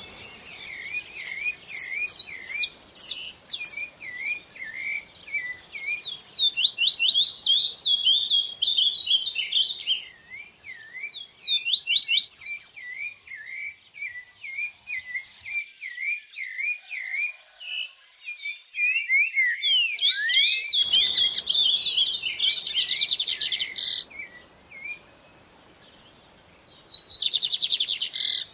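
Several songbirds singing. One gives a steady run of short chirps, a few each second, while higher quick sweeping notes and trills come and go over it, busiest in the second quarter and again in the last third.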